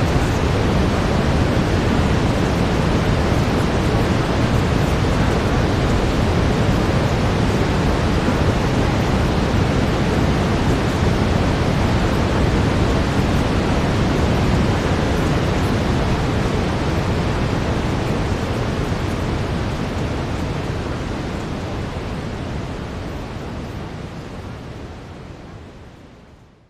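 Brown noise: a steady, even rush of noise, heaviest in the low end, fading out over the last several seconds.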